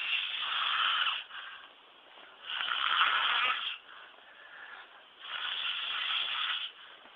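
A man snoring: three loud snores about two and a half seconds apart, with fainter breathing between them.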